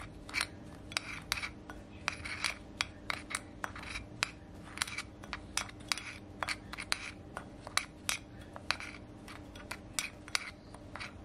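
Metal spoon stirring dry ground spices in a small glass bowl: a quick, uneven run of light clinks of spoon on glass with gritty scraping in between.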